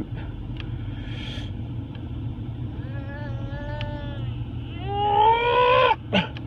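Domestic cat meowing: one drawn-out meow about three seconds in, then a louder, rising meow near the end, followed by a brief falling cry.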